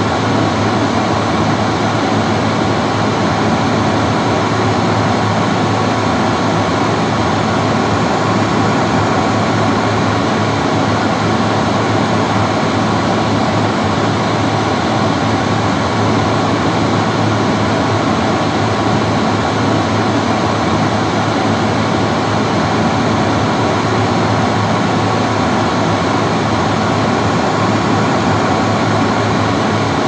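Classic bathroom hand dryer running continuously: a steady rush of blown air over a low motor hum.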